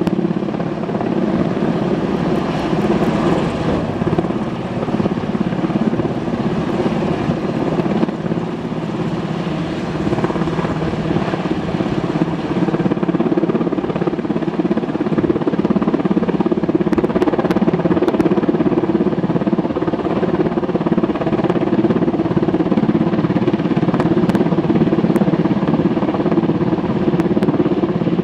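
Helicopter hovering overhead with its water bucket on a long line dipped in a pond, rotor and turbine running loud and steady while the bucket fills.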